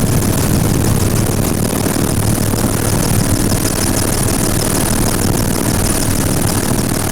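Helicopter engine and rotor noise heard from on board, loud and steady, with a fast even beat from the rotor blades and a thin high turbine whine.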